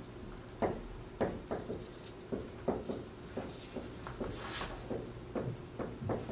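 Dry-erase marker writing on a whiteboard: an irregular string of short taps and strokes as the letters are formed, with one longer, hissier stroke about four and a half seconds in.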